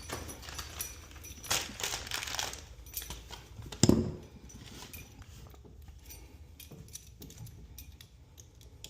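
Work handling noises while running electrical cable: scattered clicks, rustles and small metal rattles, with one sharp knock about four seconds in.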